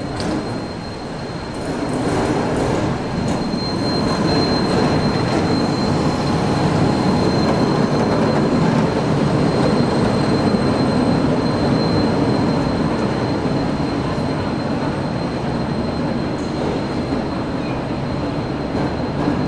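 A tram running close by on its rails: a steady rumble that grows louder about two seconds in, with a thin, steady high-pitched squeal of steel wheels on the rail.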